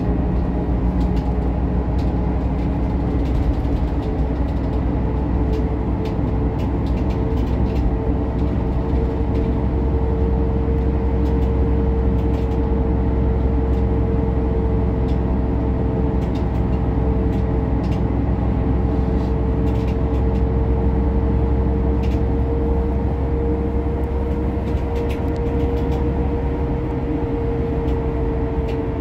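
Cabin noise of a Kravtex-Kühne Credo Econell 12 Euro VI low-floor bus under way: a steady low engine and road drone with a steady whine over it, and light scattered clicks and rattles.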